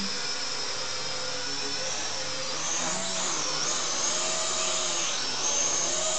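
SNAPTAIN S5C toy quadcopter's motors and propellers whining in flight. The pitch swoops up and down about halfway through and again near the end as the drone adjusts its hover.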